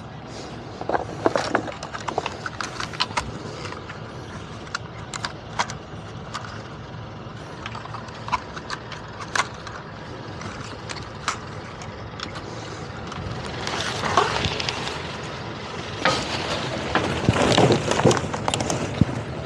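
Hands handling gear: scattered sharp clicks and taps of small plastic equipment, a phone, cable and drone controller being connected, over a steady background hiss. Near the end a longer spell of louder rustling and rummaging as gear and a line are handled.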